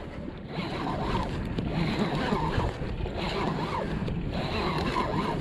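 Sougayilang conventional saltwater fishing reel being cranked steadily, winding in line under the load of a hooked fish.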